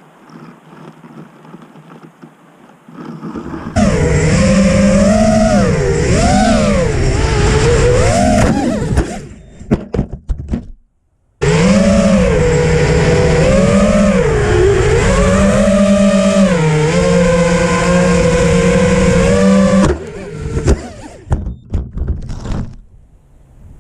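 Racing quadcopter's brushless motors (2205 2300KV on a 4S battery) whining, the pitch rising and falling with throttle. It starts about four seconds in, cuts out briefly around eleven seconds, runs on until about twenty seconds, then comes only in short bursts.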